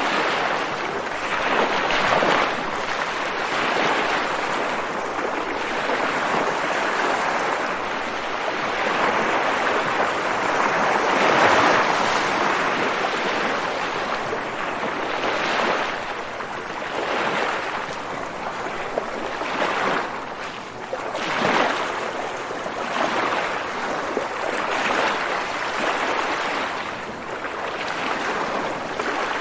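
Ocean waves breaking and washing in, a continuous rushing surf that swells and ebbs every few seconds.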